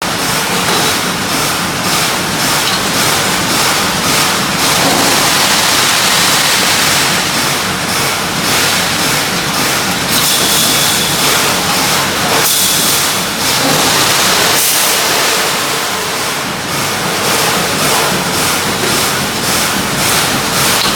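EVG mesh welding line running: a loud, steady rushing noise with a quick run of short strokes, about two or three a second, and a few bursts of higher hiss around the middle.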